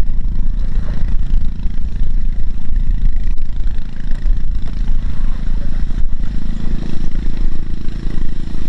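Small diesel engine running steadily with a clattery knock. Its note shifts slightly about six seconds in.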